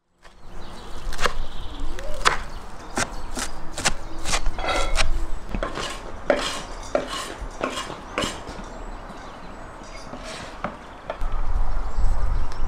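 Knife chopping fresh herbs on a wooden cutting board: irregular sharp taps that thin out after about eight seconds. A low rumble sets in near the end.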